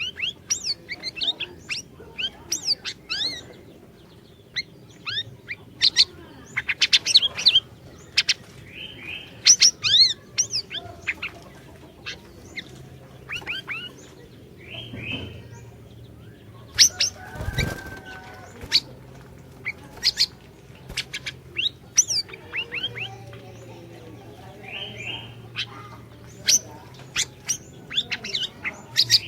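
Siri-siri songbird singing rapid runs of sharp, high chirps and quick whistled sweeps, in bursts with short pauses between phrases. A single low thump comes about halfway through.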